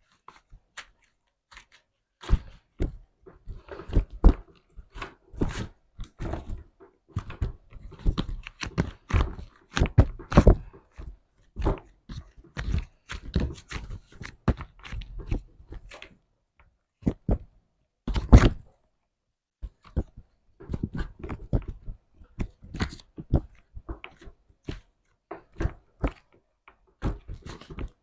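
Slime being squeezed and poked by hand: irregular runs of sticky pops and crackles, with short pauses between handfuls.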